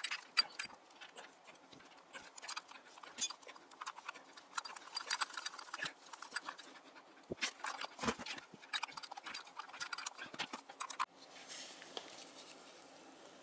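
A string of irregular light clicks and knocks, many in a row, for about eleven seconds, then a faint steady hiss.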